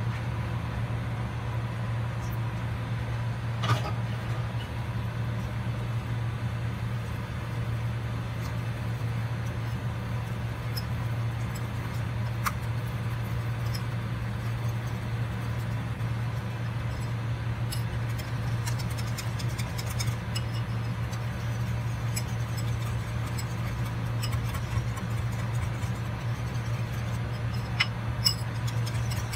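Steady low machine hum, with a few light clicks and taps of a wire whisk against a ceramic bowl as a flour, chilli powder and water batter is whisked.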